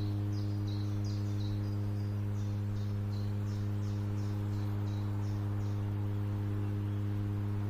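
Electrical substation transformer humming, a steady low mains hum with even overtones. A run of short, high, repeated chirps sounds over it through the first part.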